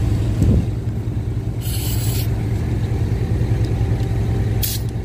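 Air compressor running with a steady low hum while a tire is aired up, with a dull thud just after the start and two short hisses of air escaping at the hose chuck, one about two seconds in and a briefer one near the end.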